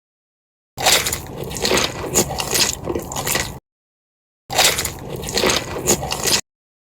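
Close-miked chewing and crunching of crisp food, in two stretches of about three and two seconds, each cut off abruptly into dead silence.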